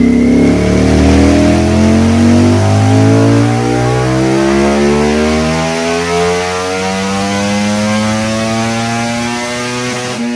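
Ducati Panigale V4 R's V4 engine under steady acceleration, its pitch climbing smoothly for several seconds. The revs drop right at the end as the throttle eases.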